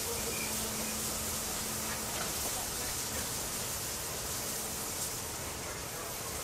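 Steady hiss of steam escaping from a DR class 50 steam locomotive, an even rush of noise with no exhaust beats.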